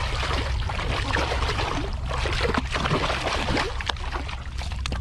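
Sea water splashing and sloshing against rocks as a hooked yellowtail kingfish thrashes in the foaming wash at the water's edge, with irregular splashes over a steady low rumble.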